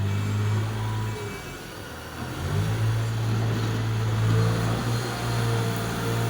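An engine running steadily with a low hum. It drops off for about a second and a half near the start, then picks up again.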